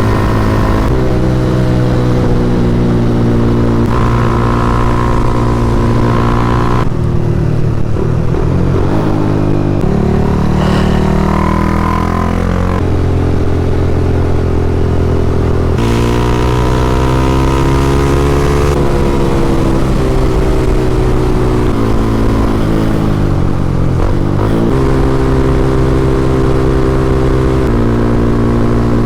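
A Honda CBR300R's single-cylinder engine running under way, its note holding steady, then stepping and gliding up and down several times as the throttle and gears change.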